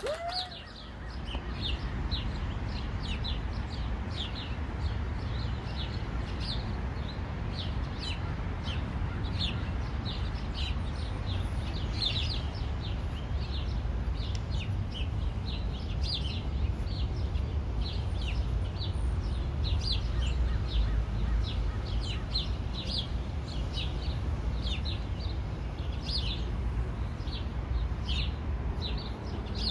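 Small birds chirping, many short high chirps a few times a second, over a steady low rumble.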